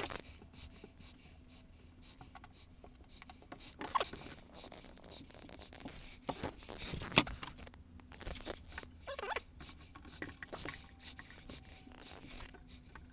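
Scattered handling noises of scraping, rustling and clicking, with a sharp click about seven seconds in.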